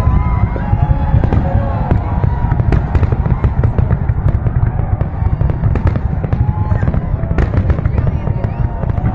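Aerial fireworks display going off in rapid succession: a dense, continuous run of bangs and crackles over a heavy low rumble.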